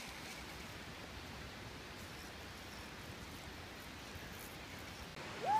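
Faint, steady outdoor background hiss with no distinct events. Just before the end, a person's voice begins a rising, held yell.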